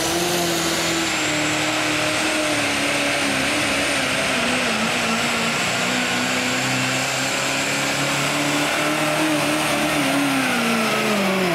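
Super stock diesel pickup truck (GMC) running flat out as it drags a weight-transfer sled. The engine note sags slowly as the sled bogs it down, then drops quickly near the end as the truck comes to a stop at the end of the pull.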